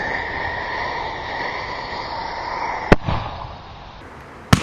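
Consumer firework mortar shells going off: two sharp bangs about a second and a half apart, each with a short echo. Before the first bang there is a steady high-pitched drone.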